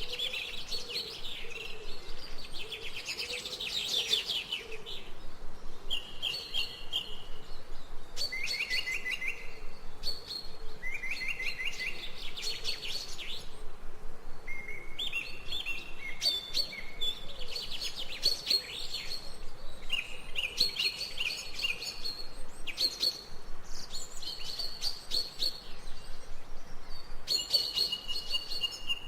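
Songbirds chirping and singing in a garden: short phrases of rapid high notes and trills that follow one another every second or two, without pause.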